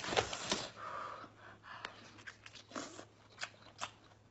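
Shell of a large cooked crab cracking as it is broken apart by hand: a cluster of sharp cracks at the start, then scattered fainter snaps and clicks as the meat is pulled out.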